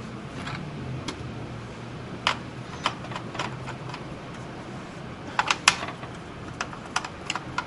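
Scattered light clicks and taps of a screwdriver working screws out of a Dell Inspiron 1525 laptop's bottom case, a quick cluster of them about five and a half seconds in, over a steady low hum.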